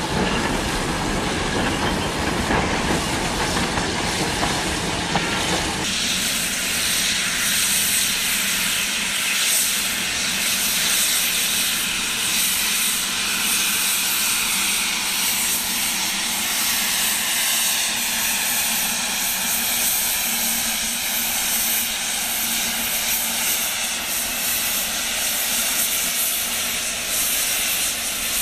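Cuban sugar-mill steam locomotive running close by with a heavy low rumble. About six seconds in the sound changes to a steady loud hiss of steam with a faint regular beat as the engine works with steam blowing from its cylinder cocks.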